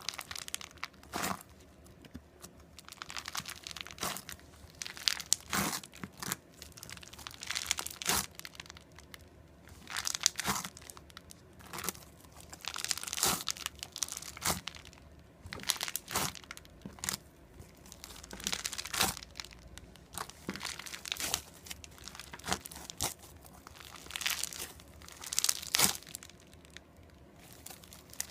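Crunchy slime being squeezed and stretched by hand, giving repeated bursts of crisp crackling and popping, about one cluster every second or two.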